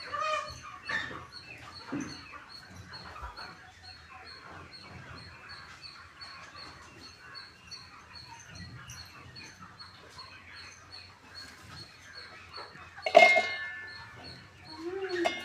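A poultry flock chirping and calling throughout, over a steady high-pitched ticking. About 13 seconds in comes one short, loud call, and near the end a lower wavering whine.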